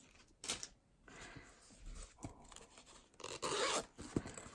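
Fabric zippered pouch being handled and pressed open: brief rustles and scrapes of the cloth and a few light knocks, with the longest, loudest rustle a little after three seconds in.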